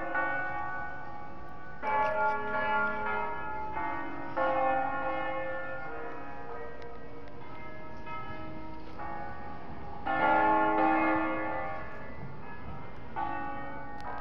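The seven-bell peal of Cremona Cathedral, tuned to A-flat major, rung in the Italian 'a concerto' style. Clusters of struck bell notes come in groups, the loudest about ten seconds in, and the bells ring on between the groups.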